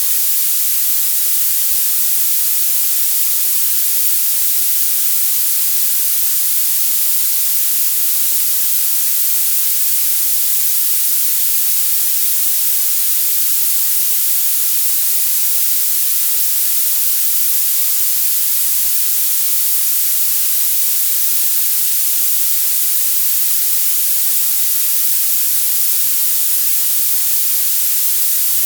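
Violet noise: a steady, even hiss whose loudness climbs steeply toward the highest pitches, with almost no low end.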